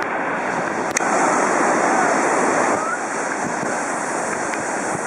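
Rushing whitewater of a river rapid, a steady roar that swells louder about a second in, for under two seconds, with a sharp knock as it begins.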